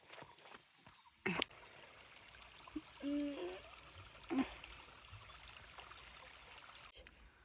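Water trickling steadily, which stops abruptly near the end. A sharp knock sounds about a second in, and a short hum-like voice sound comes around three seconds in.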